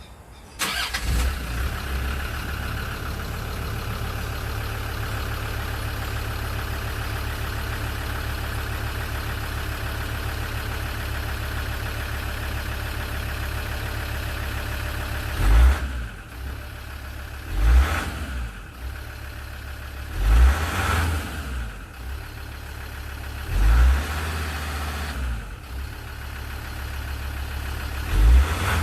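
Land Rover Discovery 2 Td5 five-cylinder turbo-diesel starting about half a second in and idling steadily through its exhaust. In the second half it is revved in five short blips, each rising and falling back to idle.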